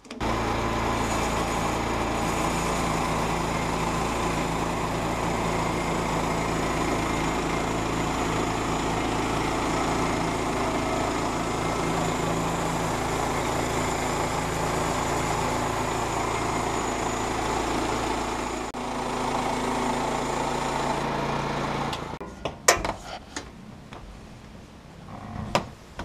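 Portable bandsaw mill running under load, its small engine working steadily while the band blade cuts through a log. The engine and blade stop a few seconds before the end, followed by a couple of sharp knocks.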